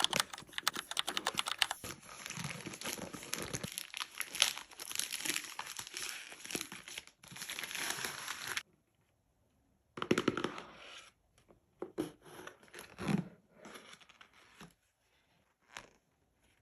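Gift packaging being unwrapped: wrapping crinkling and tearing for about eight seconds, then a short pause and scattered rustles and light knocks as the box is handled and opened.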